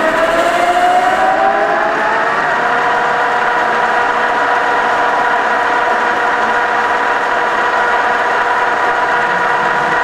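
Okuma LS-540 gear-head engine lathe running at its top spindle speed: a steady gearbox whine from the headstock with the chuck spinning. The whine rises in pitch over the first two seconds as the spindle comes up to speed, then holds steady.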